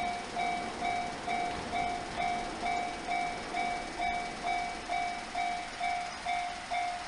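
Japanese railway level-crossing warning bell ringing, an electronic ding repeating evenly at about two strikes a second: the crossing is closed for an approaching train.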